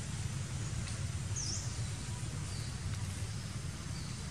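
Outdoor background: a steady low rumble, with a short high bird chirp about one and a half seconds in and two fainter chirps later.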